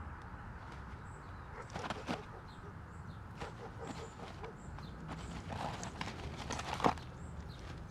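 Great spotted woodpecker pecking into the soft insulation cladding of a house front: irregular taps and knocks, the loudest one near the end.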